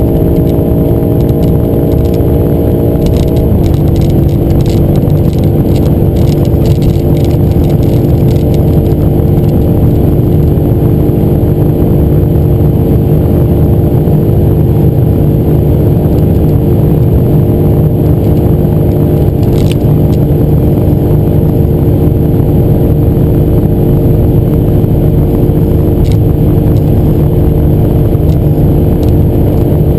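BMW M5 F90's twin-turbo V8 at full throttle near top speed, heard from inside the cabin over heavy road and wind noise. About three and a half seconds in, the engine pitch drops sharply as the gearbox shifts up from sixth to seventh. The engine then holds a steady drone as the car runs at just over 300 km/h.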